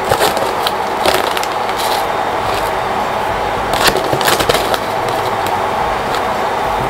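Plastic packet of desiccated coconut crinkling and rustling in irregular bursts as it is handled and poured, over a steady background hum.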